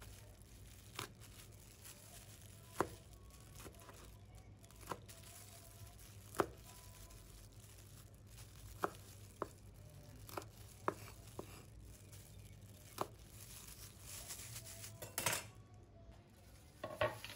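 Kitchen knife cutting fresh red chilies on a wooden cutting board: faint, sharp knocks of the blade against the board, spaced irregularly, with a few closer together near the end.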